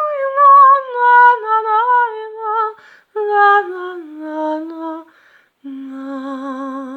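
A woman singing a wordless melody on 'na na na' syllables, in phrases that step downward in pitch, ending on a long low note held with vibrato.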